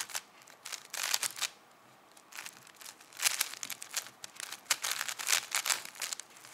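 Plastic 5x5 puzzle cube being turned fast by hand, its layers clicking and clacking in quick irregular bursts.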